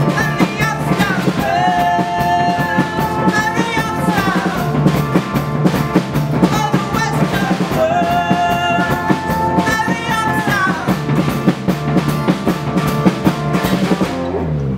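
Acoustic guitar strummed hard in a driving rhythm while a man sings, holding two long, bending notes, about two seconds in and again about eight seconds in.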